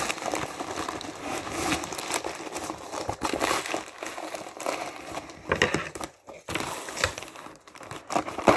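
Packing paper being handled and crumpled while a delivery box is unpacked, an irregular crinkling and rustling with a couple of short pauses near the end.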